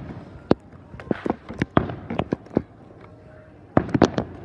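Fireworks going off in a rapid, irregular series of sharp bangs and pops, one cluster about a second in and another near the end.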